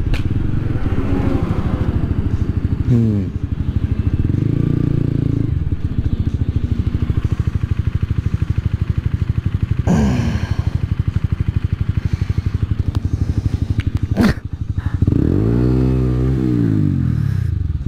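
Honda CBR125's single-cylinder four-stroke engine running at low revs, heard from the rider's seat. It revs up and back down a few times, most strongly about fifteen seconds in. A sharp click comes just before that.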